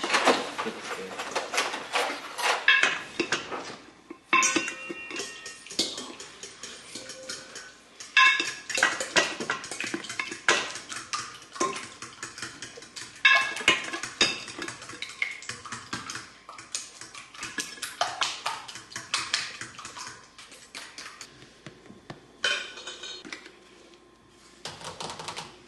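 Metal utensils clinking and scraping against dishes and pans while cooking: quick runs of clinks that stop and restart abruptly several times.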